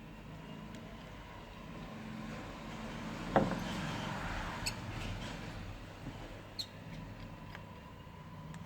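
Small clicks and ticks of a screwdriver working the screws out of a phone's frame, with one sharp click a little over three seconds in, over a low steady hum.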